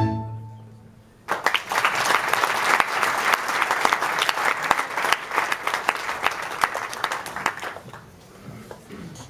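A folk string band's last note dies away, then about a second later an audience breaks into applause, which fades out near the end.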